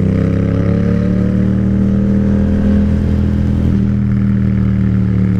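Yamaha MT-07 motorcycle's parallel-twin engine running while riding, its pitch climbing slightly over the first couple of seconds, then holding steady.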